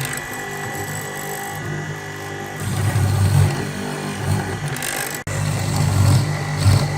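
A handheld power tool's motor running steadily, swelling louder several times as it is worked, with a momentary dropout a little after five seconds.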